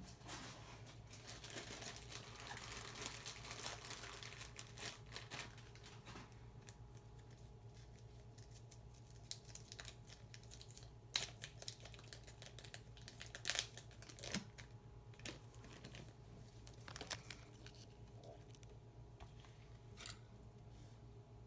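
Small steel watchmaker's tools and parts handled on a Seiko diver's watch at the bench: soft rustling for the first six seconds, then scattered sharp clicks and taps. A steady low electrical hum runs underneath.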